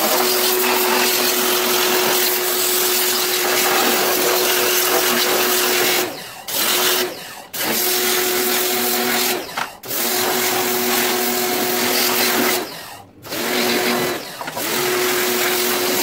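Pressure washer running, its motor humming steadily under the loud hiss of the water jet spraying a plastic washing-machine top panel. The motor and spray cut out briefly about five times in the second half as the trigger is let go and squeezed again.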